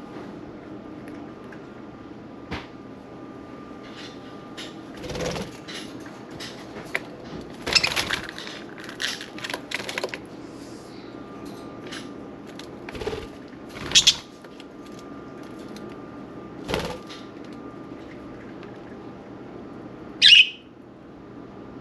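Pet budgies (budgerigars) moving about, with several short bursts of wing-flapping and fluttering, then one loud, short squawk near the end. A steady low hum runs underneath.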